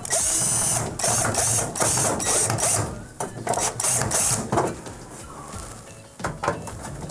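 Power screwdriver driving screws in a series of short whirring bursts, the loudest at the start, fading off after about four and a half seconds.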